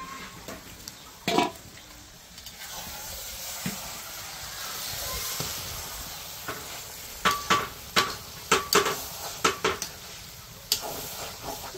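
Mutton fat, liver and lung sizzling in a pot on the fire, with a metal spoon stirring and knocking against the pot: one knock about a second in, then a quick run of about a dozen ringing knocks in the second half.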